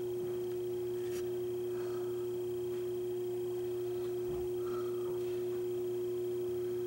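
A steady, unchanging mid-pitched tone over a fainter low hum, holding a constant level throughout, with a few faint handling noises as a cloth speaker grille is lifted off.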